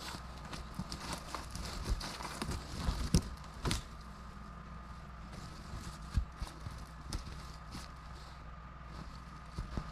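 Irregular footsteps and short knocks and clicks of a heavy log being worked by hand in snow, with a pry pole and shims, a few strikes louder than the rest.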